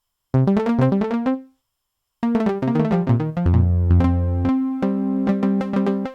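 Electronic synthesizer playing quick, short-note sequences: a brief burst of rapid notes, a short pause, then a longer run of notes with a deep bass note held underneath for about a second partway through.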